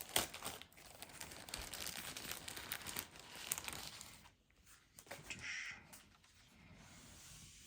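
Crinkling and rustling of packaging with sharp little clicks as a drone is unwrapped and lifted from its box, busiest over the first four seconds, then a few quieter handling noises.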